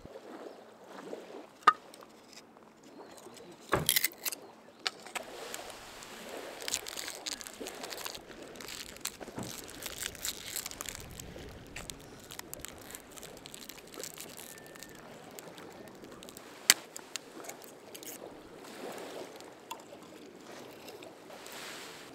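Small pieces of firewood being handled, broken by hand and set on a small metal fire grill: scattered wooden knocks and clacks over rustling. Two sharp cracks stand out, one near two seconds and one near seventeen seconds, with a rougher burst of cracking around four seconds.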